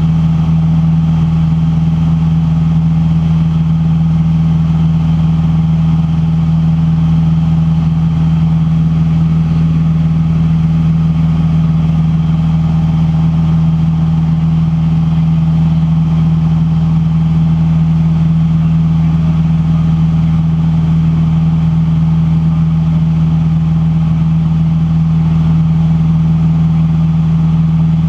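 Van's RV-8 light aircraft's piston engine and propeller droning steadily in flight, heard inside the cockpit as a loud, unchanging low hum.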